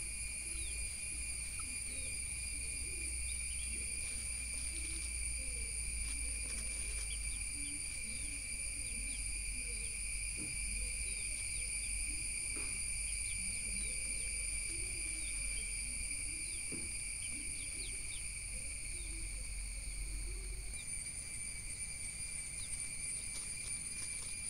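A steady high-pitched insect-like drone throughout, with faint scattered scratches, ticks and rustles of grey junglefowl hens scratching and pecking in dry leaf litter.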